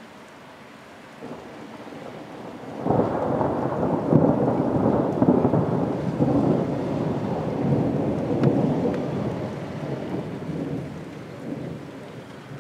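Thunder: a low rumble swells about a second in, then a loud thunderclap breaks just under three seconds in and rolls on for several seconds, slowly dying away.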